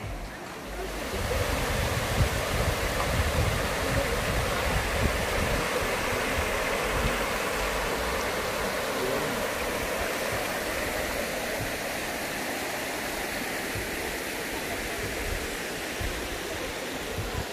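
Waterfall rushing: a steady, full roar of falling water that swells about a second in and holds, with uneven low rumbles underneath.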